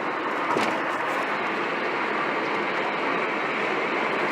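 Steady rumble and hiss of a moving vehicle, with a single click about half a second in.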